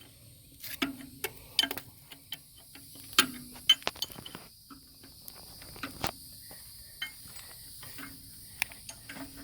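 Irregular sharp metallic clicks and taps of steel shims being handled and pushed into the gap at an excavator bucket pin; the gap is too tight to take another shim.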